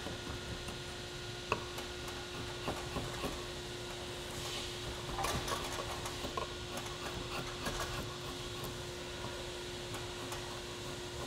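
Draw knife shaving a wooden axe handle in short, scattered scraping strokes, peeling off curls to taper the end where the axe head's eye compressed the wood. A steady hum runs underneath.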